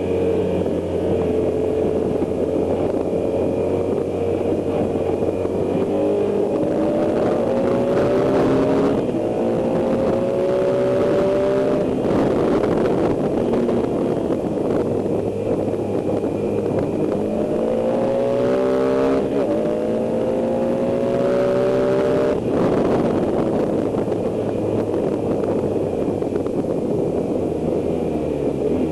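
BMW R1100S's 1085 cc boxer twin engine pulling hard at speed, heard from on board with steady wind rush. Its note climbs, drops sharply about twelve seconds in, climbs again and drops sharply once more about ten seconds later.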